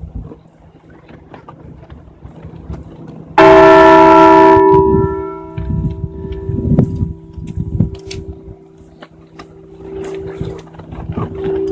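Liberty Bell replica rung with one pull, a single loud strike about three seconds in. It rings on in several steady tones that fade over the next few seconds, leaving a low hum that lingers almost to the end.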